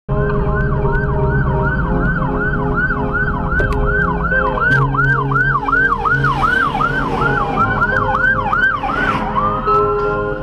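Police SUV's electronic siren in yelp mode, loud and sweeping up and down about three times a second, switching near the end to a single slow rising wail.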